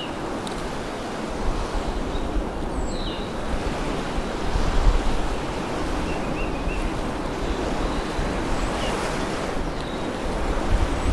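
Waves washing onto a beach with wind, a steady rush that swells a little near the middle. A few faint, short high chirps sound over it.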